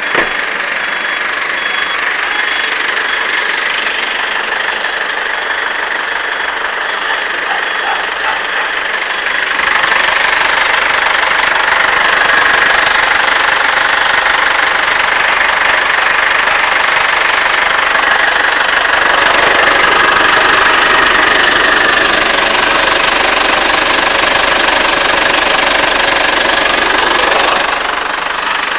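A 2012 Ford Everest running with a steady, loud, hissing-rattly noise, the annoying sound its owner is recording. The noise grows louder about ten seconds in and again a little before twenty seconds, then drops back near the end.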